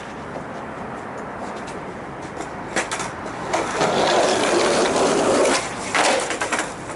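Skateboard wheels rolling on pavement, growing louder in the middle, then sharp clacks of the board near the end as a kickflip is tried.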